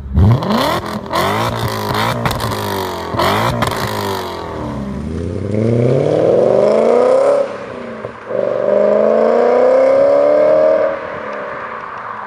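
BMW E39 M5's 4.9-litre V8, fitted with an Eisenmann race exhaust and X-pipe, blipped to high revs several times in quick succession with sharp cracks. It then pulls away hard through two rising gears, with an upshift about halfway through, and lifts off near the end as the car drives away.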